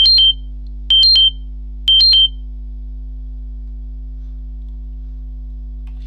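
FreeStyle Libre CGM high glucose alarm: three short electronic beep groups about a second apart, each stepping low, high, low in pitch, then a longer pause.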